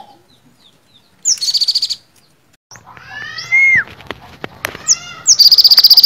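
Olive-backed sunbird singing: a fast, high trill about a second in, then a run of quick rising and falling whistled notes, and a louder fast trill near the end.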